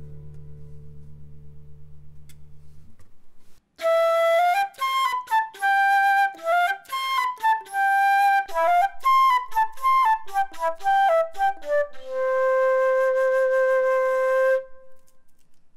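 A nylon-string classical guitar chord rings out and fades. After a short gap a concert flute plays a quick melodic phrase of separate notes, ending on one long held low note.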